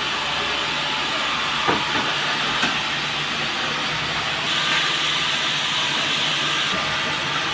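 Sawmill running with a steady hissing rush, with two short knocks about two seconds in.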